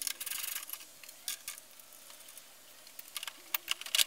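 Ratchet spanner clicking in a quick run as it turns out a bolt holding the van's plastic front grille. A few separate clicks and knocks follow as the grille is worked loose.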